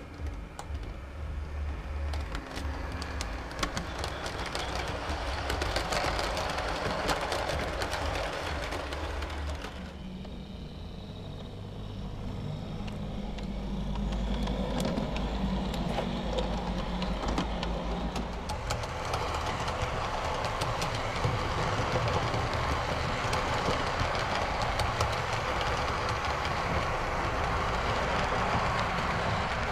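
Model electric trains running on a layout's track: a low motor hum with the rattle and clicking of wheels over the rails. The sound changes abruptly about ten seconds in and again just before twenty seconds.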